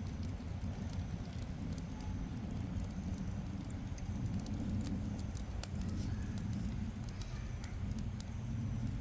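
Wood fire burning and crackling, with scattered sharp pops over a steady low rumble.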